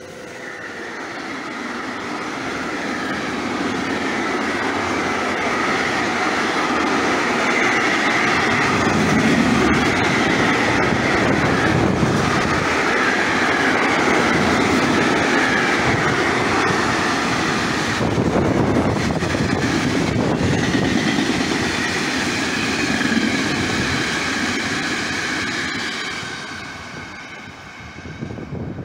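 A long freight train of tank wagons rolling past on the rails. It builds over the first few seconds, holds steady for most of the time, then fades near the end as the train moves off.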